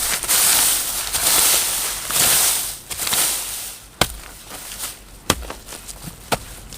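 Dry rustling and crackling noise in loud surges for about four seconds, then three sharp chopping strikes about a second apart.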